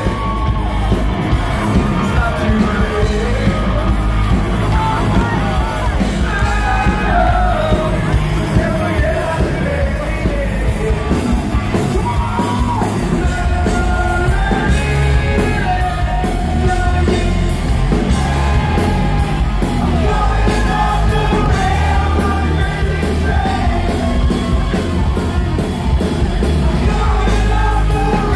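Live heavy metal band playing loud, with a singer singing and yelling over heavy drums and bass guitar, heard from the crowd in a large hall.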